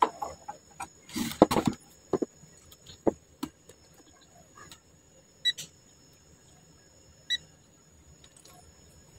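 A digital multimeter (Peakmeter PM18C) being handled, with a run of light clicks and knocks, then two short electronic beeps from the meter about two seconds apart.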